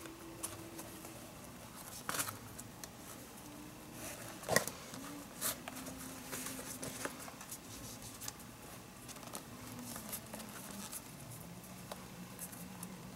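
Handwork relacing a Rawlings baseball glove: leather lace being pulled and worked through the glove's lace holes with pliers and a lacing needle, giving scattered small clicks, rustles and leather scrapes, the sharpest click about four and a half seconds in.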